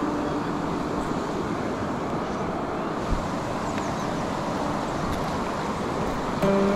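Steady rushing of river water, with one brief low thump about three seconds in.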